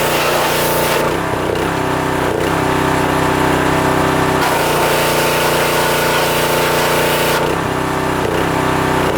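Small engine of a pressure washer running steadily, with the hiss of the spray wand cutting out about a second in, coming back partway through and cutting out again near the end as the trigger is released and squeezed. The engine's note shifts slightly each time the spray stops or starts.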